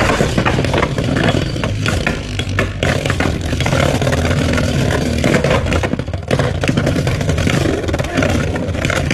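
Two Beyblade X spinning tops ripping off a dual launcher and whirring, clattering and scraping against each other and the plastic stadium, with many sharp hits throughout.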